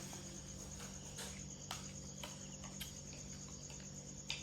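Crickets trilling, a steady high, finely pulsing chorus, with a few faint short clicks over it.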